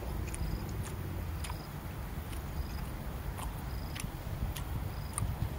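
A person chewing a mouthful of raw beef, with scattered wet mouth clicks, over a low background rumble. A faint short high chirp repeats about once a second.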